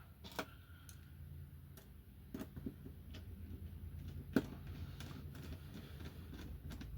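Faint, scattered small clicks and ticks of a screwdriver driving a long screw into an Xbox 360 E disc drive's casing and the parts being handled, with one sharper click about four seconds in, over a low steady hum.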